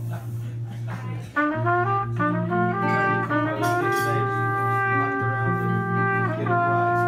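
Trumpet and guitar duo playing. Under the guitar's chords, the trumpet comes in a little over a second in with a quick run of short notes climbing upward, then settles into longer held notes.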